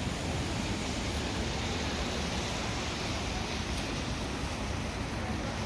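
Steady city street noise: an even rushing hiss of traffic and outdoor ambience, with no distinct events.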